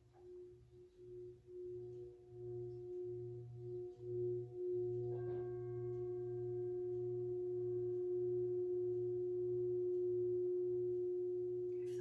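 Hand-held brass singing bowl played with a mallet: a low tone swells and wavers as the mallet works the bowl, then one strike about five seconds in adds higher ringing tones, and the bowl rings on steadily.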